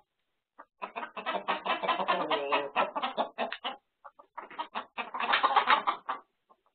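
A flock of chickens clucking and squawking in quick, rapid calls, in two long bouts with a short gap between them. It sounds like alarm calls from a coop being raided by a weasel, picked up through a surveillance camera's microphone.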